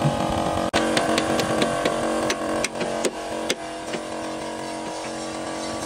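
A steady machine hum, the even drone of a running engine or motor, with sharp metal knocks and clanks over it at irregular intervals, most of them in the first few seconds. The sound drops out for an instant just under a second in.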